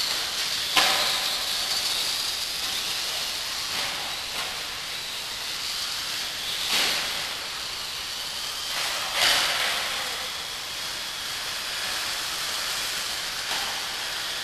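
Radio-controlled off-road model buggies running on an indoor track: a steady high whine over a hiss of tyre and drivetrain noise, with sharp knocks about a second in, near seven seconds and near nine seconds.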